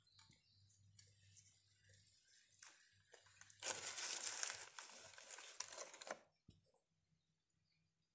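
Crunchy snack pieces crushed and crumbled by fingers onto a bun. Faint crackling at first, then a louder stretch of crunching and crackling lasting about two and a half seconds in the middle, which stops suddenly.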